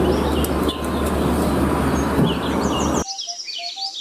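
Hino dump truck's diesel engine running as the truck moves, a steady low rumble with birds chirping over it. About three seconds in the engine sound cuts off suddenly, leaving the chirping and a few short tones.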